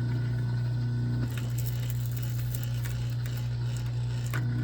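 Wire stripper working on heavy copper cable as it is fed through, with irregular clicking and scraping from about a second in and a sharp knock near the end, over a steady low hum.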